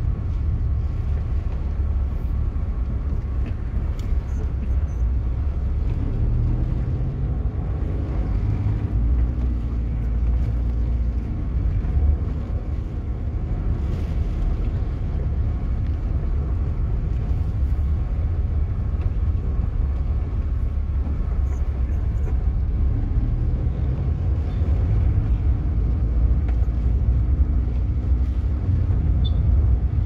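Car engine and road noise heard from inside the cabin while driving slowly, a steady low rumble with the engine note shifting in places.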